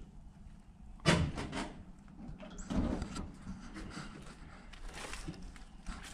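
A series of knocks and scrapes: a loud cluster about a second in, another near three seconds, then scattered lighter clicks.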